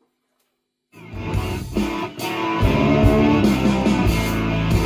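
Near silence, then rock music with guitar comes in about a second in and plays on at full level.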